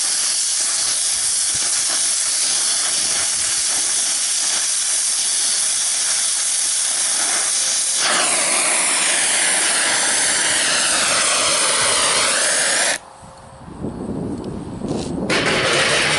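Gas welding torch flame hissing steadily, with a sweeping shift in its tone from about eight seconds in. The hiss cuts off abruptly near the end as the torch is shut off, followed by a few knocks.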